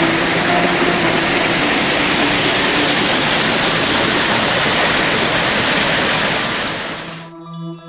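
Water gushing down a steep mill chute and splashing onto a water mill's wheel: a loud, steady rush. About seven seconds in it fades out quickly and soft music with held notes begins.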